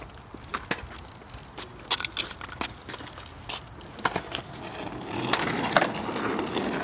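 Scattered wooden knocks and clacks of skateboards on concrete, then from about five seconds in a skateboard's wheels rolling over rough concrete, a louder steady rumble with a couple of clacks.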